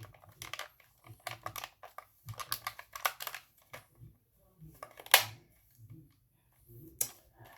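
Plastic clicks and handling rattles as the DX Knight Invoker buckle plate is fitted into the Zeztz Driver toy belt, with a sharper snap about five seconds in as it clips into place.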